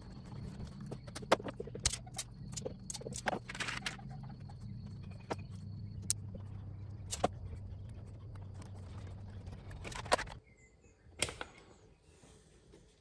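Sharp clicks and knocks of hands and tools handling an electrical junction box and its wiring, over the steady drone of a small engine running in the background. The drone stops abruptly a little after ten seconds in, leaving only the scattered clicks.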